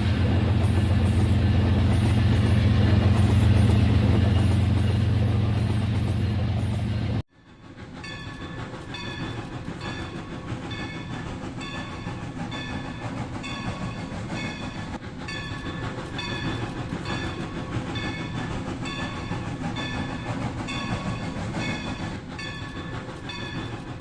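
Toy train running: a loud steady motor hum, then, after a sudden cut about seven seconds in, a quieter stretch with short high tones repeating in a regular pattern.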